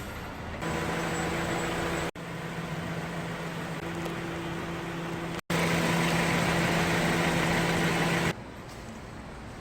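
Car engine idling with a steady hum under a rushing noise, in short clips joined by two abrupt cuts, about two and five and a half seconds in; the last clip is the loudest.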